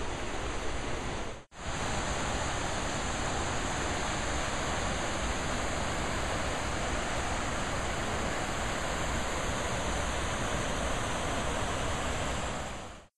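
Rocky mountain river rushing over rapids, a steady, even rush of water. It drops out for an instant about a second and a half in and fades away near the end.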